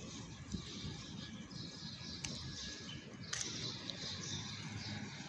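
Outdoor street ambience picked up by a phone microphone: a steady low rumble of distant traffic, with faint high bird chirps and a couple of small clicks around the middle.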